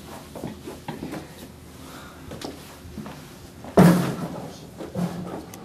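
Scuffling and knocks as people are dragged and laid on a hard floor, with one loud thud a little before four seconds in.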